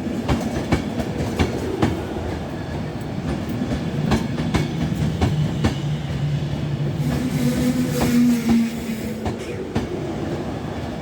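Avanti West Coast Class 390 Pendolino electric train rolling slowly into the platform, its wheels clicking over rail joints at uneven intervals over a low, steady hum.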